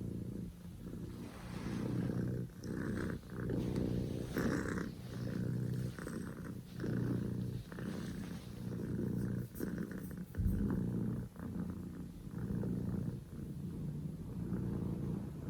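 Scottish Fold kitten purring loudly: a steady low rumble that breaks briefly about once a second as it breathes in and out.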